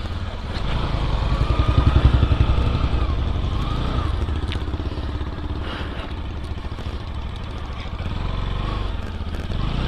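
Bajaj Pulsar NS200's single-cylinder engine pulling hard as the motorcycle is ridden and accelerated, swelling about two seconds in and then running steadily.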